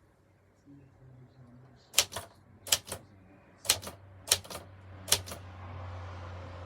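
Privileg typewriter keys struck one at a time, five sharp clacks at a slow, uneven pace, each with a small follow-up tap. A steady low hum with a soft hiss comes up near the end.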